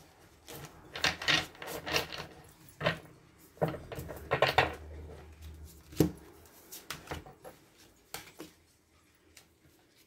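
A deck of tarot cards being shuffled by hand in several short crackling bursts, then cards being set down on a table: one sharp tap about six seconds in and a few lighter taps after it.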